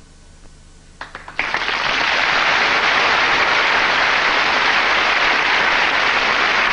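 Studio audience bursting into loud, sustained applause about a second and a half in, after a few scattered first claps.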